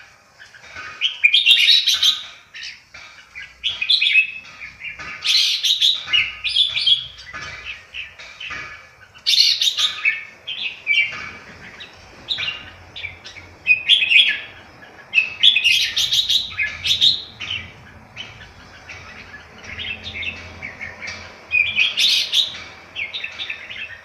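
Red-whiskered bulbul singing: loud, short warbled phrases repeated every two to four seconds, with softer chirps between them.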